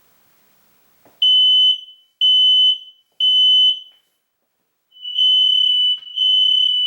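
Hardwired smoke alarm with battery backup sounding its test signal after its test button is pressed: loud, high-pitched beeps in the standard three-beep alarm pattern. Three short beeps come about a second apart, then a pause of about a second, then a second set of longer beeps.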